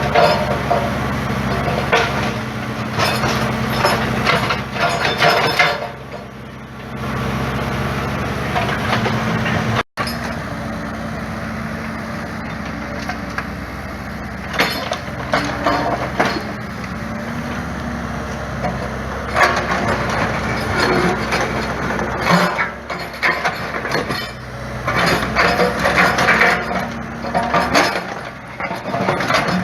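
Digger's diesel engine running steadily under load, with irregular knocks and clatter as the bucket scrapes and dumps clay and stone spoil.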